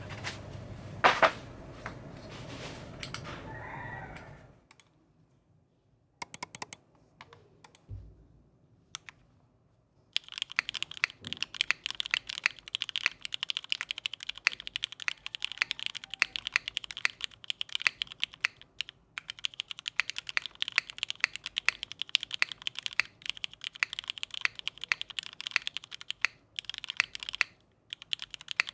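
Typing on a Hiney Ladybird custom mechanical keyboard with an FR4 plate, O-ring mounting and vintage Cherry MX Black linear switches under GMK keycaps: a few scattered keystrokes, then fast continuous keystroke clacks from about a third of the way in, with brief pauses. Before that, a steady hiss with one sharp click about a second in.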